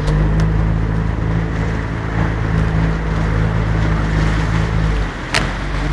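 Outboard motor of a wooden river boat running at a steady low hum, with water rushing along the hull and past the rapids. The engine hum drops out briefly near the end, followed by a single sharp click.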